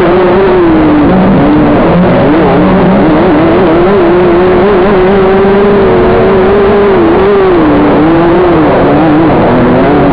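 Dirt racing kart engine heard from an onboard camera, running hard at high revs, recorded very loud. The engine note wavers, dips briefly about a second in and again a couple of times near the end, then climbs back up.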